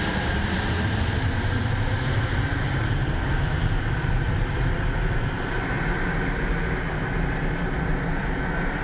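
Antonov An-225 Mriya's six Progress D-18T turbofan engines at takeoff power as the aircraft climbs away: a steady jet rumble with a whine that slowly falls in pitch, the top end growing duller as it recedes.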